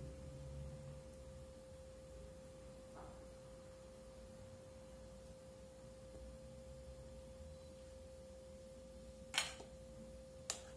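Faint steady tone over a low hum, with a sharp click of a spoon knocking against a metal cake pan about nine seconds in and a second click about a second later.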